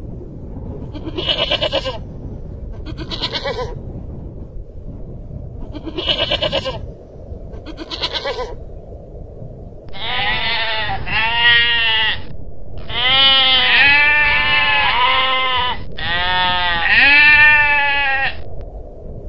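Long-tailed goral calls: four short, breathy calls about two seconds apart over steady low background noise. Then, from about ten seconds in, a run of longer bleats whose pitch arches up and down.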